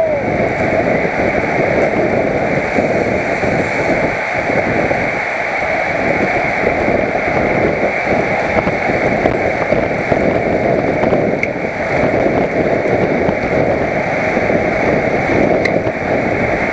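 Wind rushing and buffeting over a helmet-mounted camera's microphone as the cyclist rides at speed: a loud, steady rushing noise that wavers in strength throughout.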